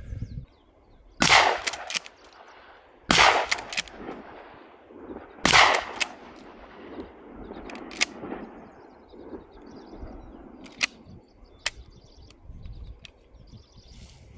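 Shotgun firing buckshot rounds: three loud blasts about two seconds apart, each trailed by a quick rolling echo. Then come a few fainter sharp cracks.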